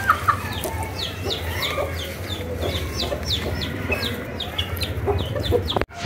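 Flock of chickens clucking at feeding time, with many quick, high, falling peeps throughout. The sound cuts out for an instant near the end.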